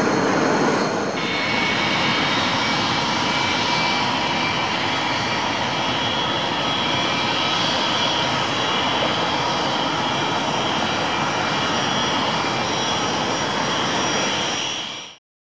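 Airbus A380's four Engine Alliance GP7200 turbofans running at taxi power: a steady rushing noise with several high, steady whining tones. It cuts off suddenly near the end.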